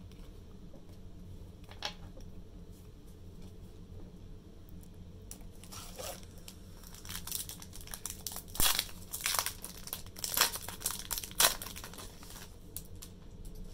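Foil Pokemon booster pack wrapper crinkling and being torn open: scattered crackles at first, then a busy run of sharp crinkles and rips in the second half.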